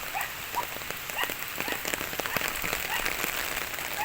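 Rain falling, a steady patter with many separate drops ticking throughout.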